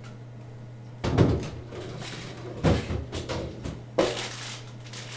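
A wooden bathroom vanity drawer being opened and a hand rummaging through the boxes and packets inside: sudden knocks about a second in, again past halfway and near the end, each followed by rustling. A steady low hum runs underneath.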